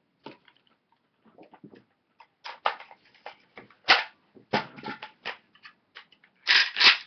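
AK-pattern semi-automatic rifles being cleared: an irregular series of metallic clicks and clacks as the action is handled and the bolt is racked, the loudest clacks coming near the end.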